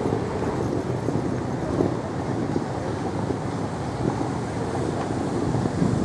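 Wind buffeting the camera microphone: an uneven low rushing noise over the open-air hubbub of a city street.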